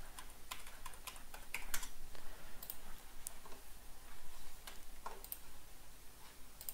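Typing on a computer keyboard: irregular key clicks as a number string is entered, busiest in the first two seconds and sparser after.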